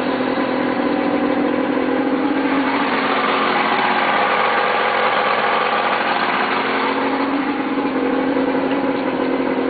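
1974 Mercury 150 hp (Merc 1500) inline-six two-stroke outboard running smoothly. Its engine speed dips briefly about four seconds in, then picks back up.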